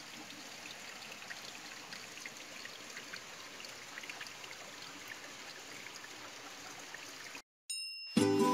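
Steady trickle of hot spring water seeping out between rocks into a river. It cuts off about seven seconds in, and plucked-string music begins just before the end.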